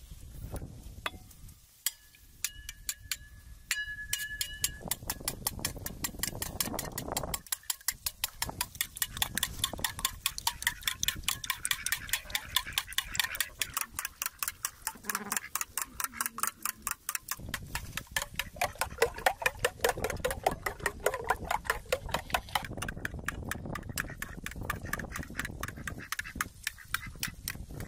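A spoon beating eggs in an enamel bowl: fast, even clicks of the spoon against the bowl, about five a second, kept up almost without a break.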